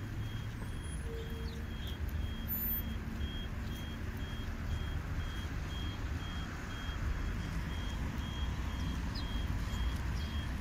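A vehicle's reversing alarm sounding short, high beeps at an even pace, over a steady low traffic rumble.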